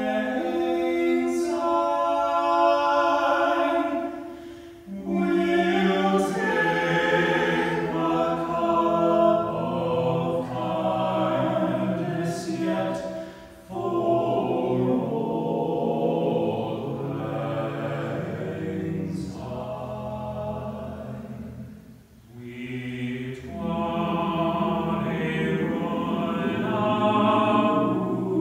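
A cappella men's choir singing a slow song in close harmony, in long phrases with short breaks between them.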